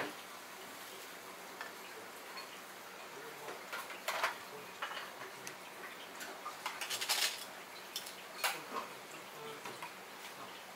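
Scattered light clicks and clinks of chopsticks and a spoon against a ceramic ramen bowl as toppings are set in, with a short run of quick taps about seven seconds in.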